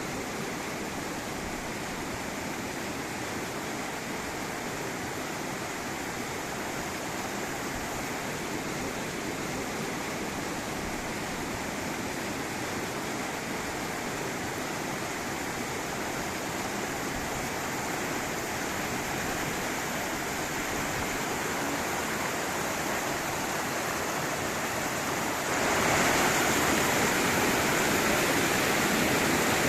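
River water rushing over rocks in a cascade, a steady even roar of flowing water that gets louder near the end.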